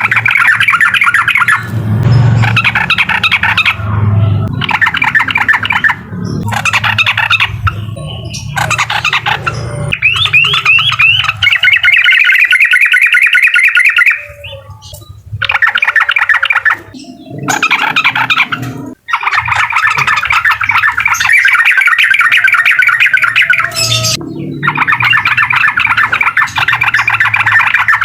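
Yellow-vented bulbul (trucukan) singing loudly in the 'uklik' style: long runs of fast, chattering trilled notes with a few short pauses between phrases.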